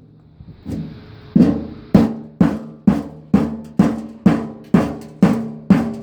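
Sledgehammer striking a metal appliance over and over, about two blows a second, each hit ringing briefly. The blows start about a second and a half in, after a short pause.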